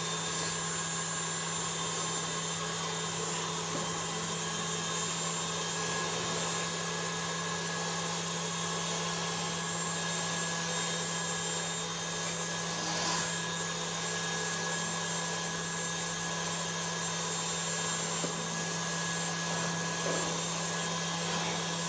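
KitchenAid stand mixer running steadily at constant speed, its wire whisk beating eggs in the stainless steel bowl.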